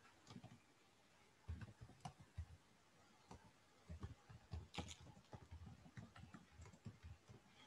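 Faint, irregular computer mouse clicks and soft desk knocks over near silence.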